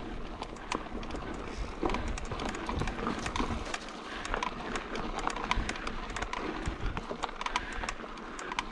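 Mountain bike rolling down a rocky trail: many irregular clicks and knocks from the tyres striking rock and the bike rattling, over a steady rush of tyre and trail noise.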